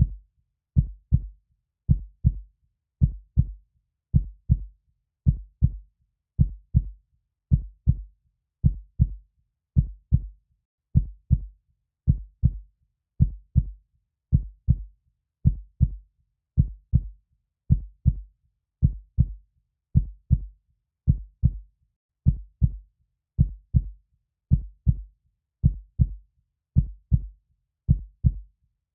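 Heartbeat sound beating steadily at about one beat a second, each beat a pair of low, dull thuds (lub-dub).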